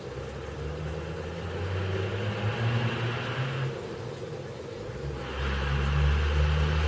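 Diesel pickup truck engine droning as it passes, its pitch wavering; it swells, dips briefly, then grows louder about five seconds in.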